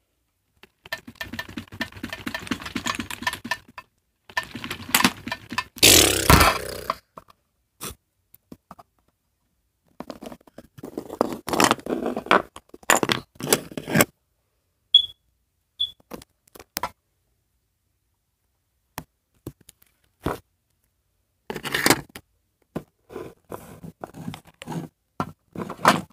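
Toys being handled by hand: irregular scraping, rustling and clattering in several bursts with silent gaps, the loudest about six seconds in.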